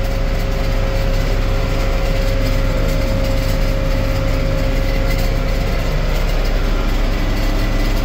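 John Deere 4255's six-cylinder diesel engine running steadily under load from inside the cab, pulling and powering a John Deere 435 round baler that is picking up hay. A steady whine runs over the engine sound.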